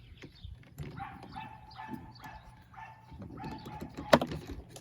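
A run of short animal calls, about three a second, then a single sharp click about four seconds in.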